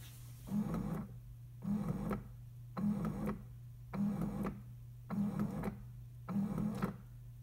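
Keurig single-cup coffee maker brewing: its pump pulses in an even rhythm, a little slower than once a second, over a steady low hum as it pushes hot water through into the cup.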